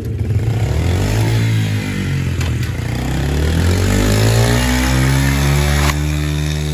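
Pit bike engine revving hard. Its pitch dips briefly, then climbs steadily for several seconds, typical of a bike held on the throttle for a burnout.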